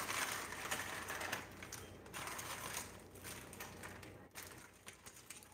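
Faint crackling and small clicks of a cooked shrimp's shell being peeled off by hand, louder in the first two seconds and then fading.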